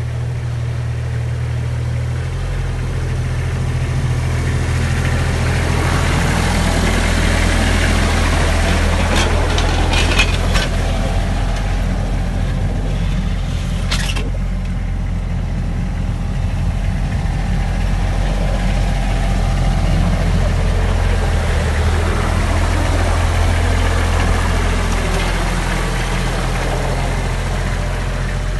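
Kubota L3430 compact tractor's diesel engine running steadily while moving snow, growing louder around eight and again around twenty seconds in. There are a few short knocks around ten and fourteen seconds in.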